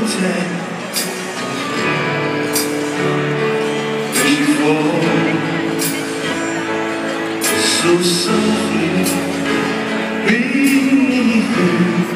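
Live concert music heard from the crowd in a stadium: a male singer with guitar and band, sung lines with long held notes over a steady accompaniment.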